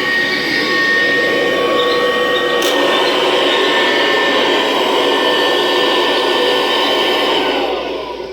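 Kirby Classic upright vacuum cleaner's motor and fan running with a steady whine. It shifts in tone with a click a little under three seconds in, then is switched off near the end and winds down.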